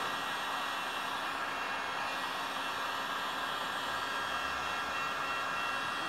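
Handheld electric heat gun running steadily, blowing hot air onto vinyl foil being applied over chrome window trim. The fan and airflow make an even hiss with a faint steady hum.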